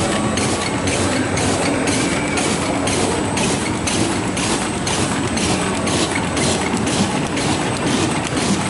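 OPP bag making machine running, a steady mechanical rumble with a regular beat of about two to three strokes a second.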